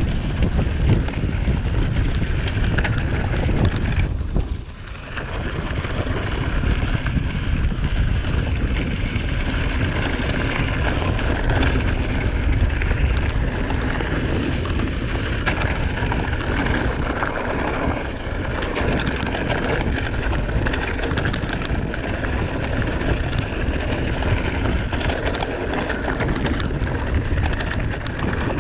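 Mountain bike rolling fast downhill over rough ground: a dense rush of wind on the microphone mixed with tyre noise and frequent small clicks and rattles from the bike. The rush drops briefly about four and a half seconds in.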